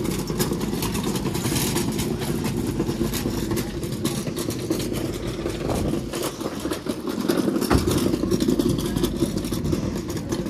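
Small wheels of a hand trolley rumbling and rattling over brick paving, with one sharp click nearly eight seconds in.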